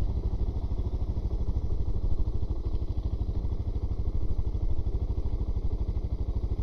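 Suzuki DR650's single-cylinder four-stroke engine running steadily at low revs, with an even, rapid chugging beat.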